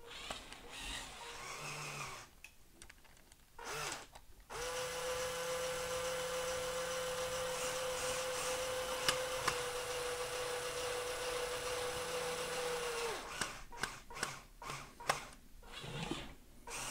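Small electric motor of a remote-controlled building-brick model running steadily for about nine seconds with an even hum, starting a few seconds in and cutting off sharply. Short bursts of the same motor come before and after.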